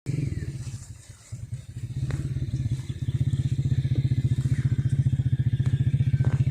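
A small engine running steadily with a rapid, even firing pulse, starting abruptly and dipping briefly about a second in.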